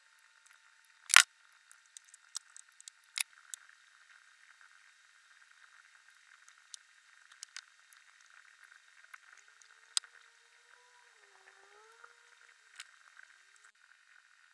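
Small clicks and taps of glass fragments and a glue tube being handled on a wooden tabletop, with one sharp, loud click about a second in and a few smaller ones later, over a faint steady hiss.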